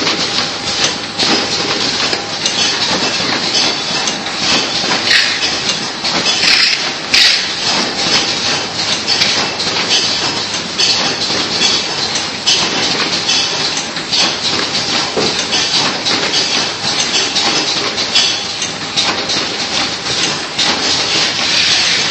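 Automatic biscuit cartoning machine running: its chain conveyors and box-handling mechanisms clatter with a dense stream of rapid metallic clicks and knocks over a steady hiss.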